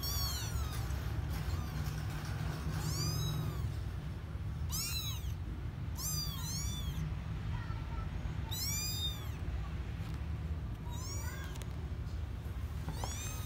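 Young kittens mewing: about eight short, high-pitched mews at irregular intervals, each rising and falling in pitch, over a steady low hum.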